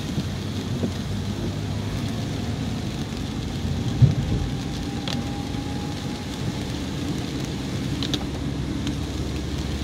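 Car cabin noise while driving in the rain: a steady low rumble of engine and tyres on the wet road, with rain hiss, and a single low thump about four seconds in.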